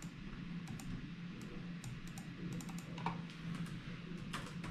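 Typing on a laptop keyboard: a run of irregular key clicks as a spreadsheet column header is typed in.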